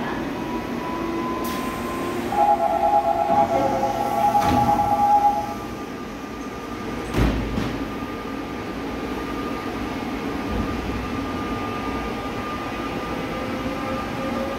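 Subway train departing a platform. A loud two-tone door-closing warning buzzer sounds for about three seconds. A thud follows a couple of seconds later, then the electric traction motors whine faintly, rising in pitch as the train pulls away.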